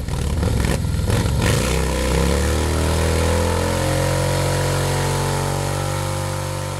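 Motorcycle engine revving hard, then the revs falling away into a steady, lower running note that slowly gets quieter near the end.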